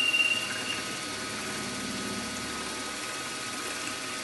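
A 3.8 mm drill bit cutting in a carburettor body block gives a high squeal that stops under a second in, as it goes just through into a tapped M5 hole. After that the machine's spindle runs on with a steady hum.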